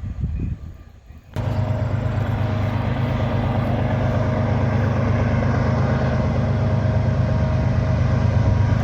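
Norfolk Southern diesel freight locomotives running under power as the train pulls out of a siding: a loud, steady engine drone with a deep hum and a held tone. It starts abruptly about a second and a half in.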